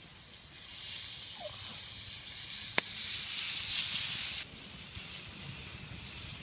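Tilapia fillets frying in garlic butter in a pan: a steady hissing sizzle that swells for a few seconds and then drops suddenly, with one sharp click near the middle.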